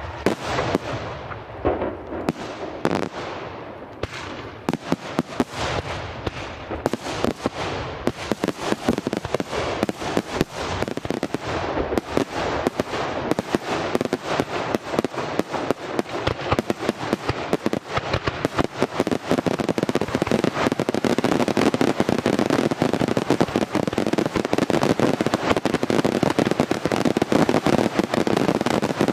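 Aerial fireworks display: shells bang one after another, coming faster and denser until, from about twenty seconds in, they run together into a loud, continuous barrage of bangs.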